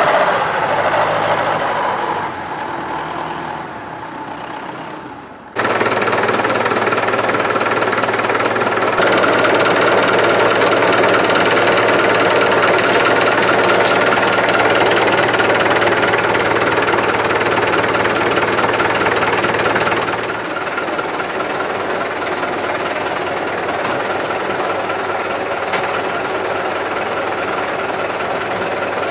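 UTB 650 tractor's diesel engine running with a steady clatter, heard in several takes that switch abruptly. The sound dips briefly before picking up again about five seconds in.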